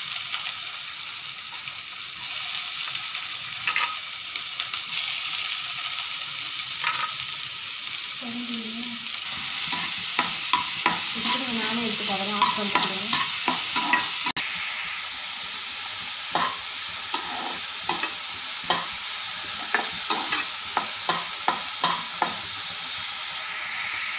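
Chopped onions sizzling in hot oil in a non-stick kadai with a steady hiss, stirred with a spatula. From about halfway through, the spatula scrapes and taps against the pan in quick, frequent clicks.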